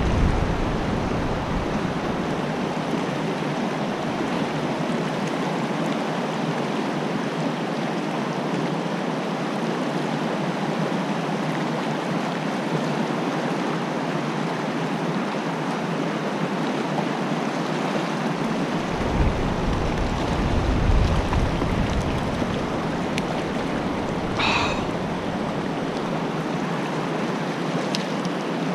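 Fast-flowing stream water rushing steadily over rocks, with a low rumble about two-thirds of the way through.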